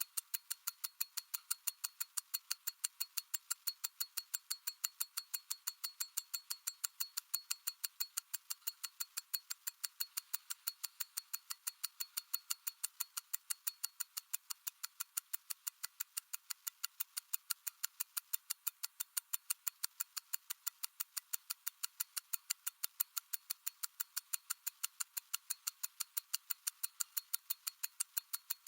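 Mechanical watch ticking steadily at about five beats a second, each tick a sharp, crisp click.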